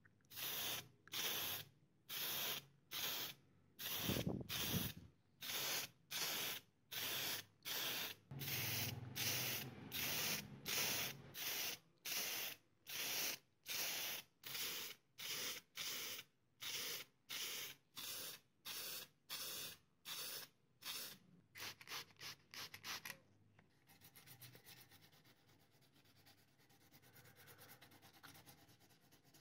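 Aerosol spray can of primer sprayed in short, evenly spaced bursts of hiss, about one and a half a second, onto a small model truck body. From about 24 seconds in, the bursts give way to a fainter, fast scratching of sandpaper rubbing over the primed model.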